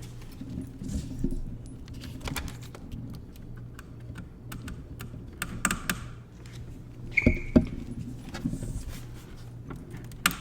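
Scattered light clicks, small metallic rattles and knocks from hands working tools and mounting hardware, with two louder knocks about seven seconds in.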